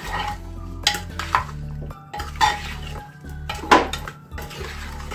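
Metal spoon stirring chunks of raw mutton, onion and tomato with whole spices and oil in an aluminium pressure cooker, scraping the pot and striking its sides with sharp, ringing clinks about four times.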